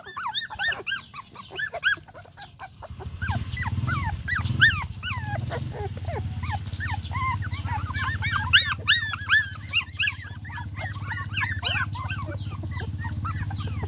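Young puppies whimpering and squealing, a rapid string of short, high squeaks. From about three seconds in a steady low rumble runs beneath them.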